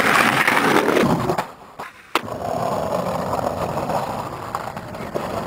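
Skateboard wheels rolling over pavement, with a short quieter gap and one sharp clack of the board about two seconds in, then rolling again.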